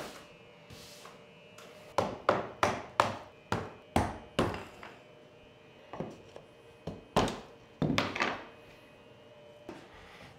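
A mallet tapping small wooden wedges against the lumber on a CNC spoilboard, locking the boards against the stops. The wooden knocks come in a quick run of about seven, then after a pause a few more.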